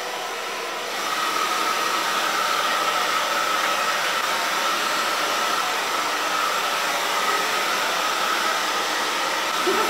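Handheld hair dryer running steadily: a rush of blown air with a high motor whine above it. It gets slightly louder about a second in and stays level after that.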